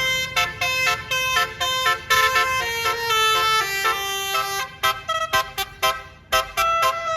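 Basuri multi-tone bus horn playing a fast 'telolet' melody: a run of short, loud horn notes stepping up and down in pitch, with a brief break about six seconds in.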